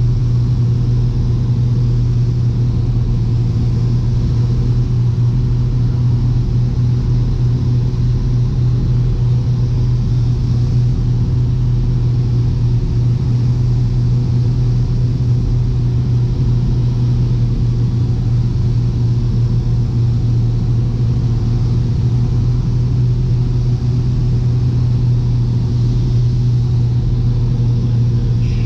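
Piper Seneca V's twin turbocharged piston engines and propellers running steadily on approach, heard as a constant drone inside the cockpit.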